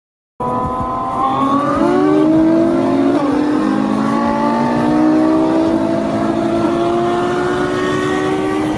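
Ferrari sports car engine accelerating hard through the gears. Its pitch climbs and drops sharply at each upshift, twice in the first few seconds, then rises steadily in a long pull.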